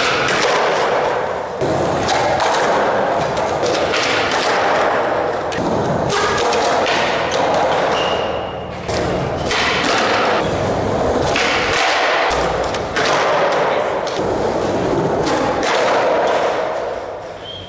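Skateboard wheels rolling on a concrete floor, with repeated thuds of boards popping and landing from flatground trick attempts.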